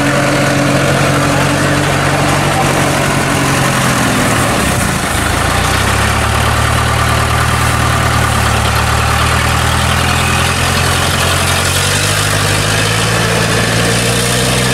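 Engine of a small tracked rice-hauling cart running steadily. Its pitch drops about a third of the way in, holds, then climbs again near the end as the loaded cart moves off.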